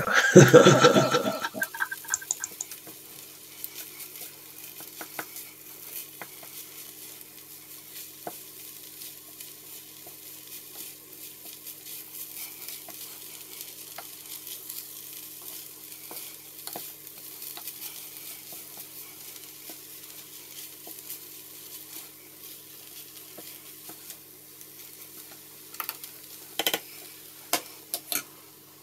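Fried rice sizzling in a nonstick frying pan while a wooden spatula stirs and scrapes through it, with a steady stream of light scraping ticks. It opens with a loud burst of sound in the first second or so, and a few sharper knocks of the spatula or pan come near the end.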